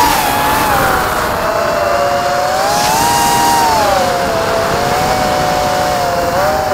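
Electric motors and propellers of a Goby 180 mm mini quadcopter whining in flight, heard through its onboard camera, over a rush of wind and prop wash. Several close tones move together: the pitch rises about three seconds in, then falls and dips again as the throttle changes.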